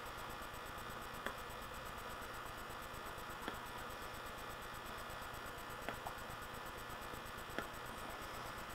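Steady hiss with five faint, short mouth clicks at irregular intervals: lips smacking softly on a tobacco pipe's stem while puffing.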